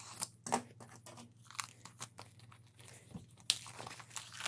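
Plastic shrink-wrap being peeled off an album package, crinkling and crackling in irregular snaps, with one sharp crack about three and a half seconds in.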